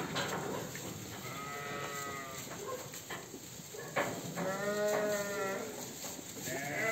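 Ewes bleating in a pen: two long, wavering bleats, one about a second in and one about four and a half seconds in, with another starting near the end. A sharp knock comes just before the second bleat.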